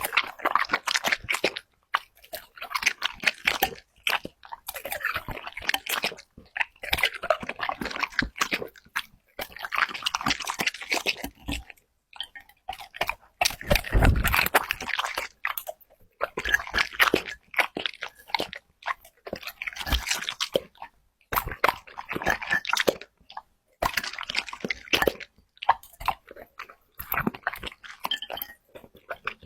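A dog chewing and crunching food, in bouts of rapid crunches a second or two long with short pauses between.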